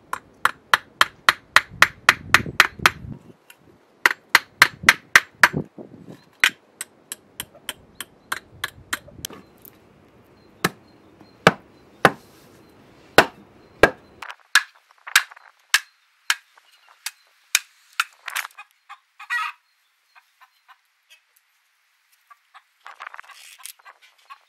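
Claw hammer driving nails into a wooden board, quick runs of about five blows a second, followed about ten seconds in by a few heavier single strokes of a billhook chopping a wooden stake.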